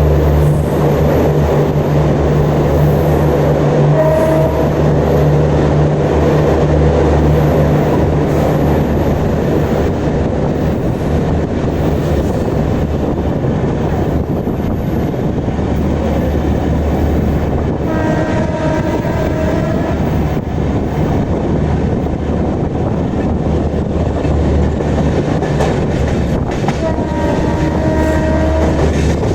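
Steady drone of a Duronto Express's end-on-generation (EOG) power car generators over the running noise of the train at speed. The WAP-7 locomotive's horn sounds: a short note about four seconds in, then two longer blasts of about two seconds each later on.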